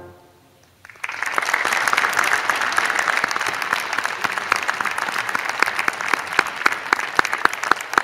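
After a brief hush, an audience starts applauding about a second in, a dense, sustained clapping in which single sharp claps stand out more toward the end.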